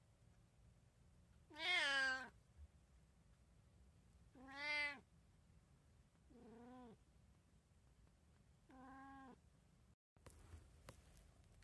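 A domestic cat meowing four times, about two to two and a half seconds apart. Each call rises and falls in pitch. The first two meows are louder and the last two softer.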